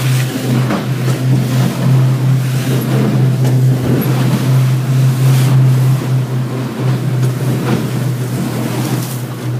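Small motorboat's engine running with a steady low drone while under way through choppy sea, with a few short splashes of waves and spray hitting the boat.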